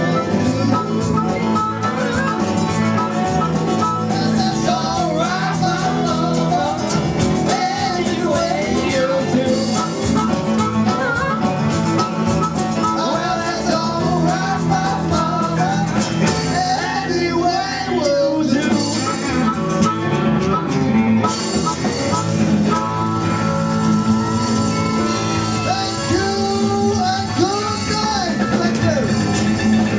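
Live band playing a blues-rock cover: electric guitars with singing and harmonica at the microphones.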